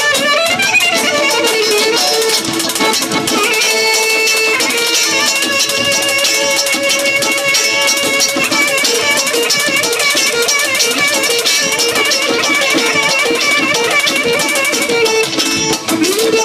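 Live band music: a clarinet plays a fast, heavily ornamented melody over guitar accompaniment.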